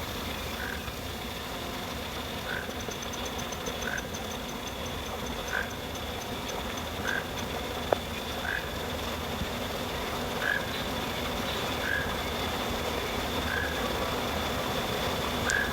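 A toucan giving short croaking calls, one about every one and a half seconds, over a steady high insect drone. A rapid high ticking trill runs briefly in the middle, and a single click sounds about eight seconds in.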